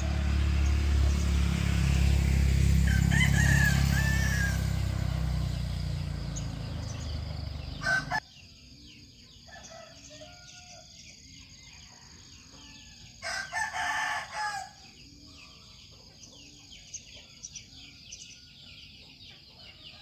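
A rooster crowing once, a loud call of about a second and a half in the second half, over a quiet background with a steady high hum. Before it, a low rumble swells and fades, then cuts off abruptly about eight seconds in.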